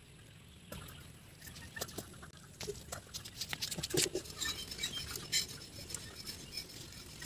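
Hands handling and breaking open ripe kadam (Neolamarckia cadamba) fruits: irregular small clicks and crackles, coming thicker from a second or two in.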